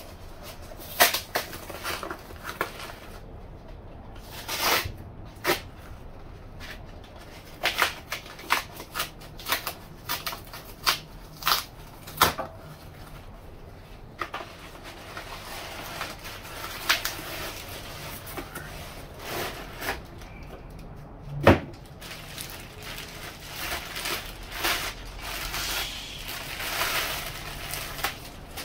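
Heavy-duty cardboard shipping box being torn and pulled open by hand, a run of crackling rips and scrapes. About three-quarters of the way in there is one loud knock, and near the end plastic wrapping rustles as the weight plate is pulled out.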